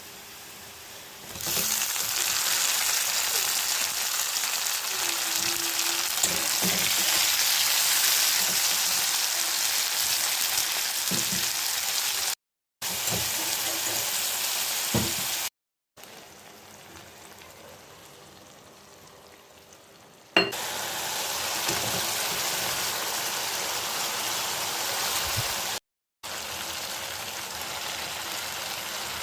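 Malabar spinach sizzling as it fries in hot oil in a pan. There is a loud, steady hiss that starts about a second in, with a few light stirring knocks, and it goes quieter for a few seconds in the middle. The sound breaks off abruptly several times at edit cuts.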